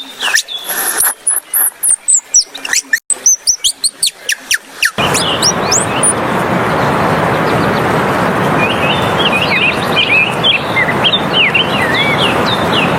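Birds chirping in quick, high bursts. About five seconds in, the sound cuts to a steady rushing noise with small birds twittering over it.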